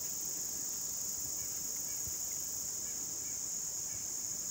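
Steady high-pitched insect chorus.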